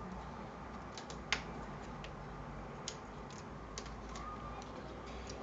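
Scattered light clicks and taps, about eight in all and the loudest just over a second in, from small hard parts being handled while working on a computer case.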